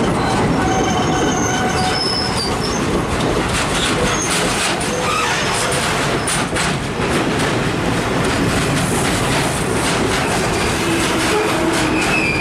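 Railway wagons rolling past close by. The wheels clatter over the rail joints, with short high-pitched flange squeals that come and go throughout.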